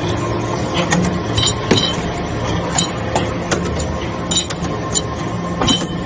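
Hydraulic metal-chip briquetting press running: a steady machine hum with about ten sharp metallic clinks at irregular intervals.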